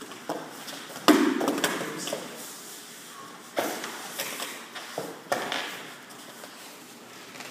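Grapplers' bodies, hands and bare feet thumping and slapping on foam mats during a jiu-jitsu scramble, with gi cloth rustling; a handful of sharp thumps, the loudest about a second in.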